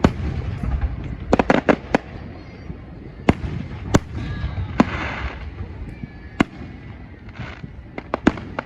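Fireworks going off: a string of sharp bangs and pops at uneven intervals, some in quick clusters, over a low rumble from the display.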